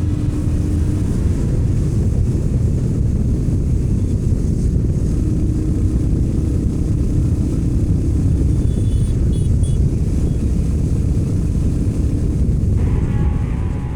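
Motorcycle on the move, its engine running steadily under a heavy low rumble of wind on the microphone. Music comes in near the end.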